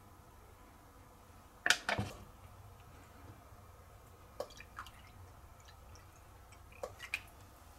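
Thin plastic tubs handled with a sharp clatter about two seconds in, then a few small drips and splashes as soaking liquid is poured from one plastic tub into another.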